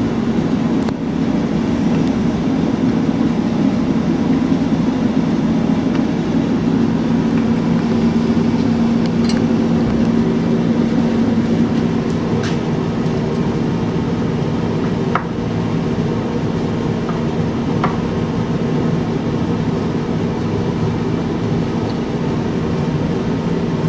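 Steady machine hum, like a room air conditioner running, with a low drone that holds one pitch throughout. A few light metallic clicks of a screwdriver and small parts being handled on a cast-iron carburetor body sound over it now and then.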